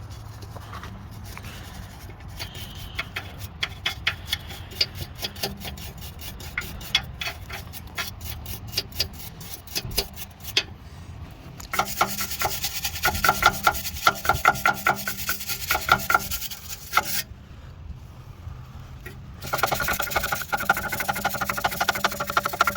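Wire brush scrubbing the welded metal of the exhaust pipe around the oxygen sensor hole. It starts with steady, repeated strokes, then turns to two louder, faster stretches of scrubbing from about halfway, with a short pause between them.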